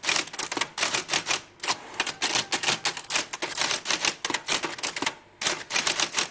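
Typewriter sound effect: rapid runs of key clacks with a couple of short pauses between them.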